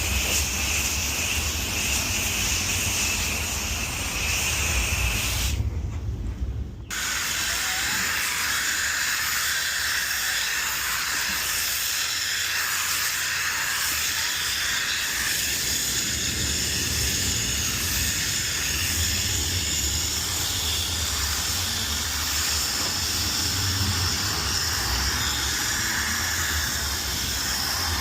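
Steady hiss of water spraying from a washing wand onto a patio surface, briefly interrupted about six seconds in.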